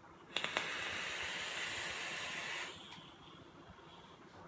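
A vaping device with a dripping atomizer drawn on: a steady hiss of air pulled through the fired coil for about two and a half seconds, then a much fainter breathy hiss as the vapor is exhaled.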